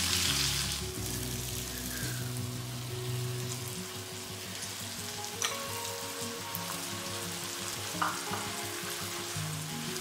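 Broccoli, garlic and butter sizzling in a nonstick wok with soy sauce, oyster sauce and honey, a steady frying hiss. Two small knocks about five and a half and eight seconds in.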